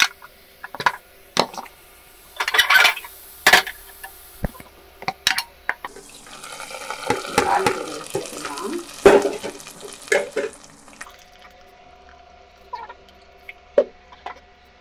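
Steel ladle clinking and scraping against a steel kadai as the fried tempering is stirred and scraped out. Midway a longer stretch of pouring and sizzling as the hot oil tempering is tipped into the pot of sambar, then more scattered clinks of the ladle.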